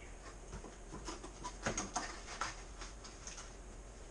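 A few short rustles and clicks of paper and small objects being handled at a desk, bunched together in the middle, over a low steady electrical hum.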